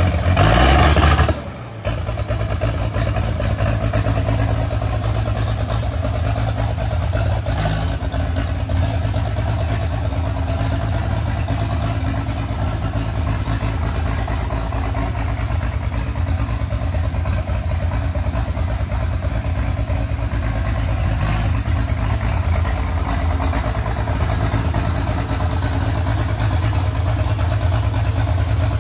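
Allis-Chalmers D17 diesel tractor running on its swapped-in engine, loud and revved for the first second and a half, then dropping sharply back to a steady, lower running note.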